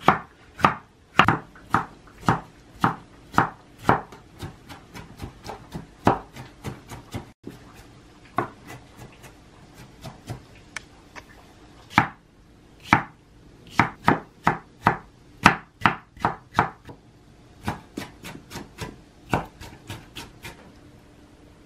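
Kitchen knife chopping tomatoes on a wooden cutting board: sharp knocks of the blade on the board, about two a second at first, then quicker, uneven runs of chopping as the tomato is diced. The chopping stops shortly before the end.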